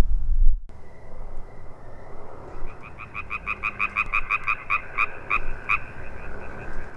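Frogs croaking: a rapid, even run of pulsed croaks, about five a second, from about two and a half seconds in to about six, over a faint steady high trill.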